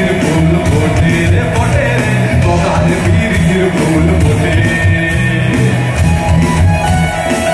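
Live rock band playing through the PA: acoustic and electric guitars, drum kit and keyboard with a sung lead vocal, heavy in the bass.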